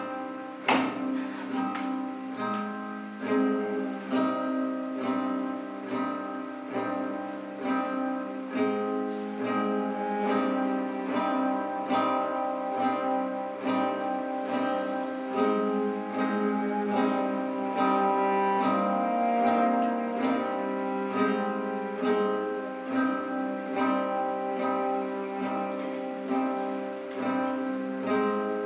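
Acoustic guitar picked in a steady, even pattern of single notes that ring on into one another.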